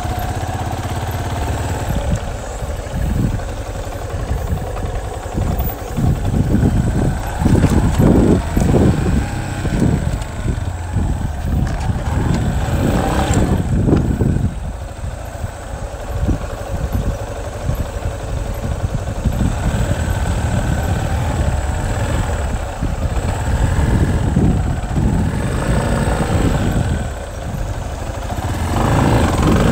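Engine of an off-road vehicle running as it drives across rough grassy ground, with louder surges about eight and thirteen seconds in and again near the end.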